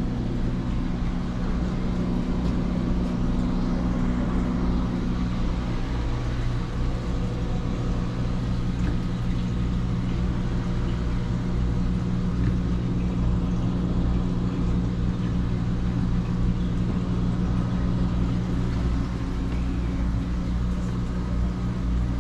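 Steady low machine hum with a buzzing undertone, unchanging throughout.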